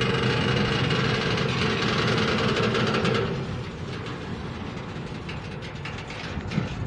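Freight train rolling past on the rails: a loud rumble for about three seconds, then quieter, with scattered clicks near the end.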